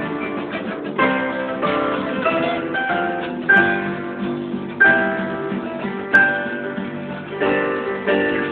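Guitar playing chords, each struck and left ringing, with a new chord roughly every second or so.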